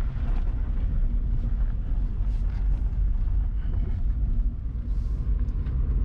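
A 1999 Honda Accord on the move, heard from inside the cabin: a steady low engine and road rumble.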